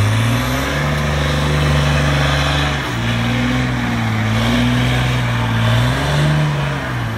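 ROSS VIZA trial truck's diesel engine working hard at high revs as the truck climbs out of a muddy water pit. It eases off briefly about three seconds in, revs up again near the end, then drops.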